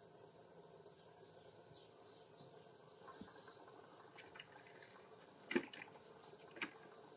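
Faint, short high chirps repeated roughly twice a second over a low hiss, fading out after about four seconds. A few soft knocks or clicks come in the second half, the loudest about five and a half seconds in.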